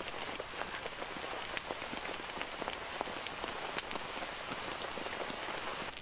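Whole pig roasting on a spit over charcoal, its skin and dripping fat sizzling and crackling with many small, irregular pops.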